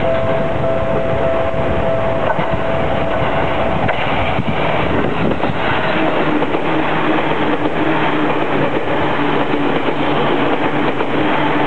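A train running over a railway level crossing while the crossing's warning alarm sounds, a loud, dense rumble of wheels on rails. Steady tones run under it, and they shift lower about halfway through.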